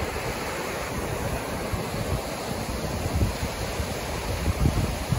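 A small mountain creek rushing over rocks and a little waterfall: a steady rush of water. A few low buffets of wind on the microphone stand out about three seconds in and again near the end.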